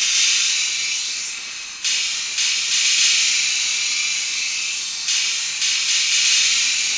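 A loud, steady high-pitched hiss with almost no low rumble, stepping abruptly up and down in level a few times.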